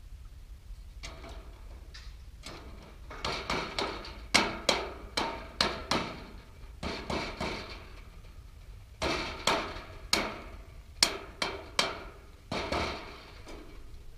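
Red mallet striking an aluminum end cap onto the end of an aluminum bleacher floor plank: a run of sharp blows in several bursts, the aluminum ringing briefly after each one.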